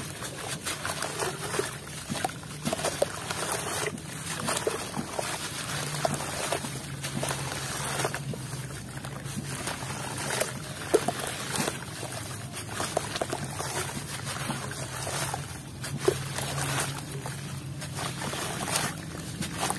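Hands crumbling and squeezing a dusty, gritty block over a tub of muddy water, with grains and chunks pattering and splashing into the water amid wet sloshing. The crunching and splashing runs on continuously, with small sharp pops scattered through it and a couple of louder splashes or cracks.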